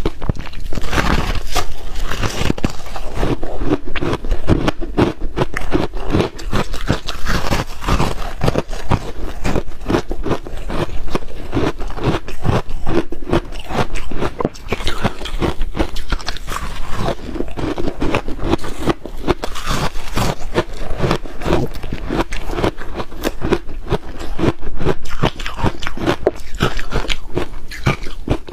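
Close-miked crunching of chunks of frosty, powder-coated ice being bitten and chewed: a dense, irregular run of sharp cracks and crackles.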